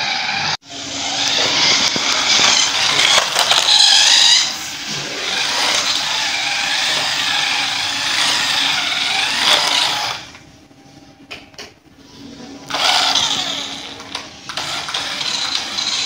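Toy remote-control cars driving on a concrete floor: small electric motors and gears whining, rising and falling in pitch as the cars speed up and turn. The sound drops away for a couple of seconds about ten seconds in, then picks up again.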